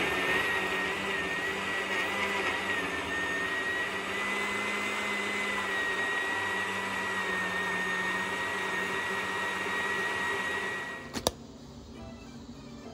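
Countertop electric blender running steadily with a high whine as it blends liquid egg batter, winding down about eleven seconds in, followed by a single sharp click.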